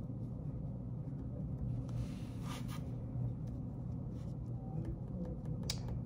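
Pen writing on paper, light scratching strokes with a few sharper ticks, over a steady low hum.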